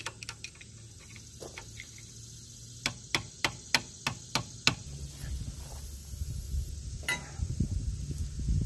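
Hammer striking a pry bar against a rock-bent steel piece under an ATV engine, a quick run of about seven sharp metal knocks, about three a second, with one more knock later over low rumbling handling noise. It is the sound of bending the damaged part out so the oil drain plug can be removed.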